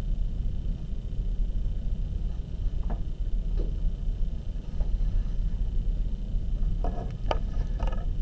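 Steady low room rumble with no speech, and a few faint ticks; about seven seconds in, a cluster of soft clicks and rustles as a hand with a pen moves over the paper.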